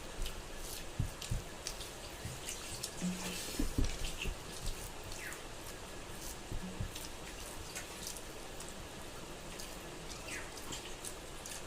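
Close-up eating sounds: chewing with wet mouth clicks and smacks scattered throughout, and a few soft low thumps.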